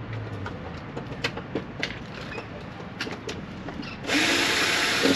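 A screw being worked out of the plastic front panel of a Wolf Islander scooter: scattered clicks and knocks of the tool on the screw and panel. About four seconds in, a loud whirring noise runs for about a second.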